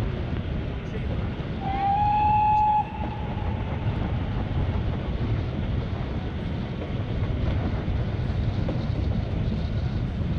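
Steam-hauled heritage train carriages rumbling steadily along the track. About two seconds in, the locomotive's whistle sounds once, a single steady tone that slides up into pitch and lasts about a second.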